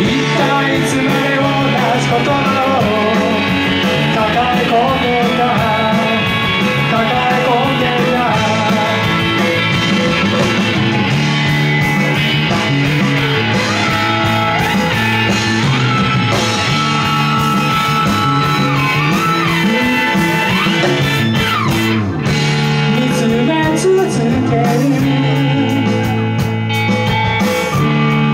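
Live rock band playing: electric guitars, bass, drums and keyboard, loud and continuous.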